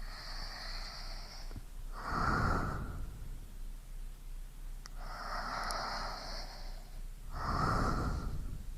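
Slow, deep breathing: two full breaths about five seconds apart, each a longer hissing draw followed by a shorter, stronger breath.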